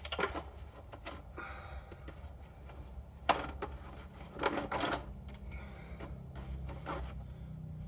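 Handling noise: scattered clicks, knocks and rubbing of a plastic RC truck body shell being worked off its chassis, over a low steady hum. The loudest knocks come a little past the middle.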